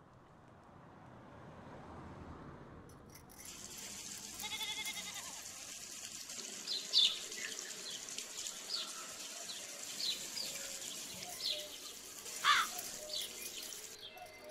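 Water running from a tap into a brass pot, a steady light splashing that starts about three seconds in, with birds chirping at intervals around it.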